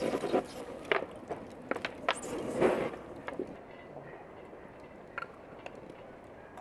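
Wood fire in a barbecue grill crackling, with irregular sharp snaps and pops for about three seconds, then only a few faint clicks.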